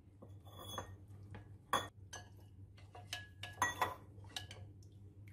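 Steel spoon stirring and scraping around a ceramic plate, mixing cornflour and water into a batter, with irregular clinks of metal on china; the loudest come about two seconds in and near four seconds.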